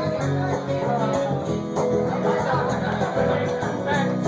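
Country music played on guitar and other instruments, with a steady beat.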